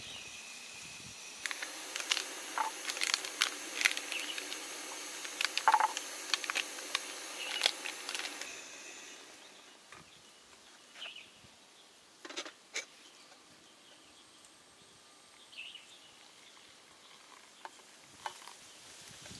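Kettle heating on a portable gas canister stove: a steady hiss with crackling and popping starts about a second and a half in and cuts off after about seven seconds. Then comes a quieter stretch with a few scattered clicks.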